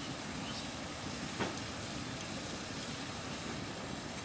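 Sugar syrup at a rolling boil in a wide aluminium pot: a steady bubbling rumble, with one louder pop about a second and a half in.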